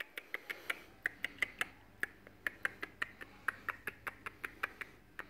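Rapid, uneven series of short, sharp kissing clicks made with the lips, about five a second, to catch a puppy's attention.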